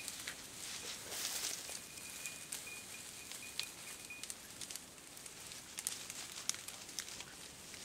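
Dry grass and scrub rustling, with scattered sharp crackles and twig snaps. A faint thin high note, broken a few times, is held for about two seconds partway through.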